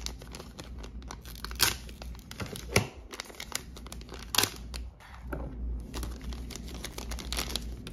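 Thin clear plastic bag crinkling and tearing as it is slit open with a folding knife. It is a continuous run of small crackles, with a few sharper, louder ones standing out.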